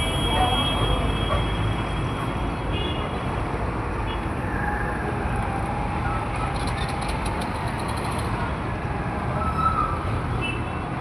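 Steady noise of busy road traffic, vehicle engines and tyres, with short vehicle horn sounds at the start, about three seconds in and near the end.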